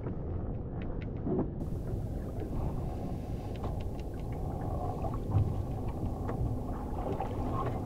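Wind rumbling on the microphone and water washing against the hull of a small stitch-and-glue plywood dinghy, with faint scattered clicks as a rope line is handled.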